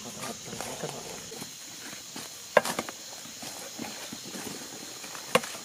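Steady high chirring of night insects, with two sharp knocks about three seconds apart standing out above it.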